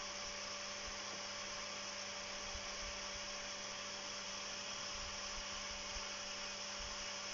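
Toom Hauswasserautomat electric garden pump running steadily after being switched on, a constant motor hum with a steady whine over it as it pumps water to fill the hose line.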